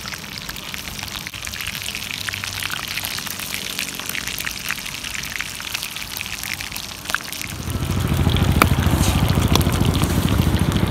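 Whole field rats frying in hot oil in a skillet, a steady sizzle with many small crackles. About seven and a half seconds in, wind buffeting the microphone adds a loud low rumble over the sizzle.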